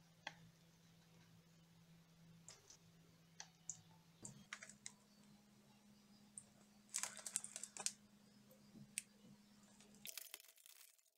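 Faint, scattered crinkles and clicks of plastic cracker-pack wrappers being handled, with a denser run of crackles about seven seconds in and again near the end. A faint steady low hum sits underneath and cuts off near the end.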